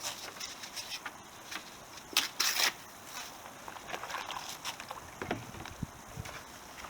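400-grit wet-and-dry sandpaper rubbed with soapy water along a motorcycle fork tube: irregular wet scrubbing strokes, louder a little after two seconds in, taking off surface patina.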